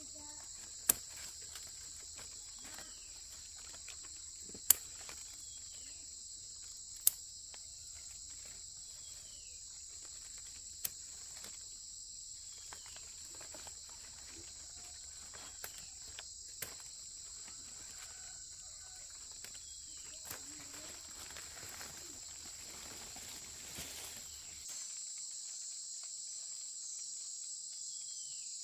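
Steady high-pitched chorus of crickets or similar insects, with a few sharp clicks or snaps in the first half, the loudest about one, five and seven seconds in.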